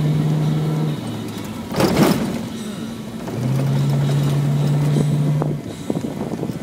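Rally car driving hard on a gravel road, heard from inside the cabin: the engine drones at a steady pitch, drops away for a couple of seconds in the middle, then comes back. There is a brief loud burst of rattling noise about two seconds in and a few sharp clicks near the end.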